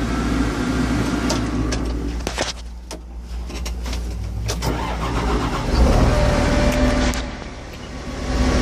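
Engine of a large Taylor tie-handling forklift running, with scattered clicks and knocks; it grows louder about six seconds in.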